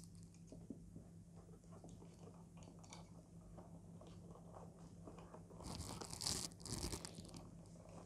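Quiet handling of a power cord and plug adapter being fitted into a hard carrying case's fabric-lined compartment: light clicks and rubbing, with a louder crinkling rustle about six seconds in. A faint steady low hum runs underneath.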